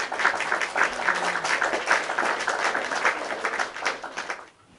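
Heavy black Ghostface costume robe rustling and swishing as its wide sleeves are swung about: a dense crackling rustle that stops suddenly near the end.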